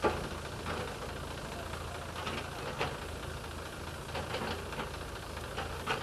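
Heavy machinery's diesel engine running steadily with a low hum, with a few short knocks standing out over it.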